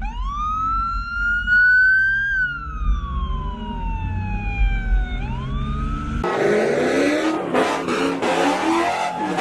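Police car siren wailing over the low rumble of a moving car: the tone rises, falls slowly and begins to rise again. Just after six seconds the sound cuts abruptly to a loud, harsh rushing noise.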